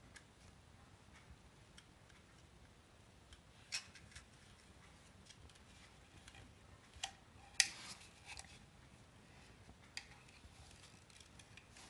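Faint scattered clicks and light scrapes of a metal pick tool prying the old cap gasket off the distributor housing, with a few sharper ticks, the loudest about two-thirds of the way through.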